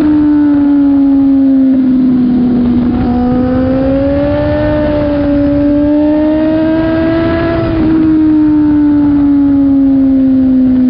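BMW S1000RR's inline-four engine running at high revs, its pitch drifting slowly: dipping about two seconds in, rising gently until about eight seconds, then easing down.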